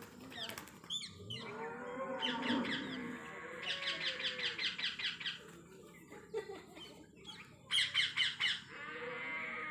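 Parrot calling in bouts of rapid, repeated high-pitched notes, about eight a second, the loudest bout near the end, with a lower, drawn-out call underneath in the first few seconds.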